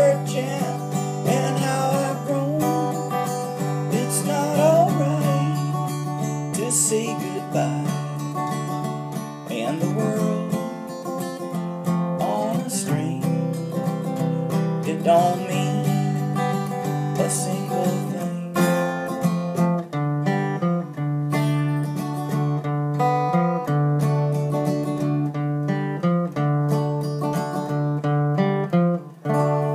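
Steel-string acoustic guitar playing a song with strummed chords and picked notes. A last chord is struck just before the end and left to ring out.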